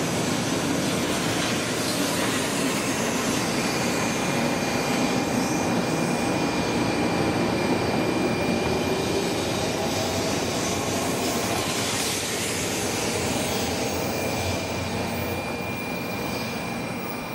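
N700-series Shinkansen accelerating out of the station past the platform: wheel and running noise with a slowly rising whine, easing off near the end as the train clears the platform.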